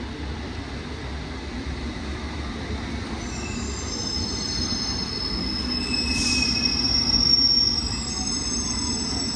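London Underground S7 Stock train pulling into a station: a low rumble that grows louder, with high-pitched squealing from about a third of the way in and a brief hiss about two-thirds in.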